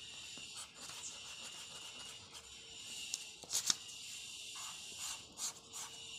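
Eraser rubbing over pencil grid lines on paper in repeated scrubbing strokes, with a sharper scrape about three and a half seconds in. A steady high-pitched trill runs behind it.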